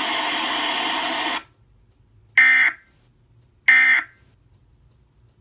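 NOAA Weather Radio sending the EAS end-of-message data bursts that close the alert: short buzzy digital bursts about a second apart. A loud steady sound cuts off about a second and a half in, and two of the bursts follow.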